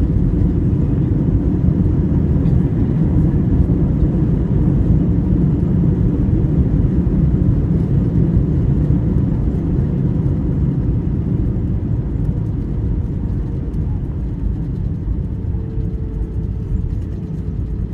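Cabin noise of an Airbus A320 on its landing rollout: a loud, deep rumble of engines and wheels on the runway that slowly dies down as the airliner slows. A faint steady hum comes in near the end.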